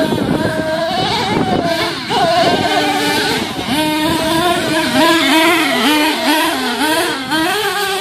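Small nitro RC monster truck engine revving hard, its high-pitched whine swinging up and down rapidly as the throttle is worked over the dirt track.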